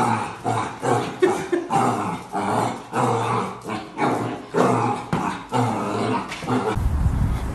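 A puppy growling and barking at its own reflection in a mirror, in short bursts about two a second. Shortly before the end the bursts stop and a steady low rumble takes over.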